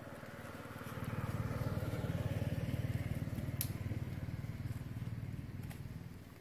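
A passing motor vehicle's engine: a low drone that swells about a second in and fades away near the end, with one sharp click about halfway through.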